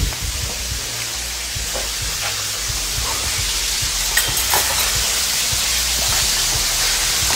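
Steady sizzling hiss of food frying, growing slightly louder, over a low hum, with a few faint light knocks.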